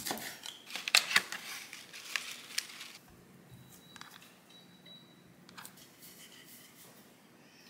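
Chef's knife slicing a lime on a wooden cutting board: a quick run of sharp knocks as the blade goes through the fruit and meets the board, stopping about three seconds in.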